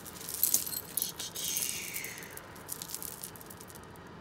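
Costume jewelry and beads clinking and rattling as pieces are picked out and handled, a scatter of light clicks with some rustling, busiest in the first two seconds and thinning out after.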